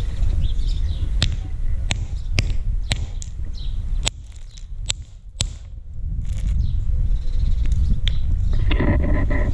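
Several sharp, irregular clicks of broken rock fragments knocking against each other and the concrete, over a steady low rumble.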